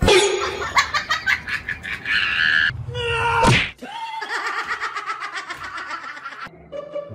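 A person laughing hard in quick repeated bursts, with a break about three and a half seconds in before more laughing.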